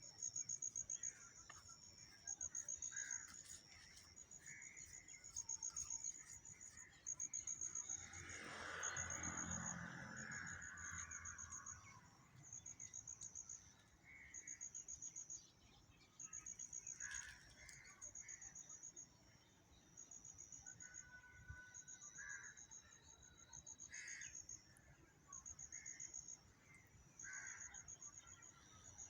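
A high-pitched insect chirping in pulsed bursts about once a second, with scattered short bird calls, among them crows cawing. A brief rushing noise comes about a third of the way in.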